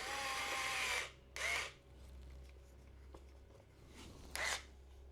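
Hanboost 35-in-1 electric precision screwdriver's small battery motor whirring in short runs, driving screws: a steady whine for about a second at the start, then two brief spurts about a second and a half and four and a half seconds in.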